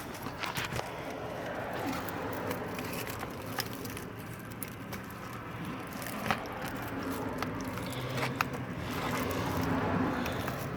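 Scraping and rustling, with a few sharp clicks, as the old cabin air filter is worked up and out of its plastic housing behind the glove box of a 2007 Hyundai Sonata.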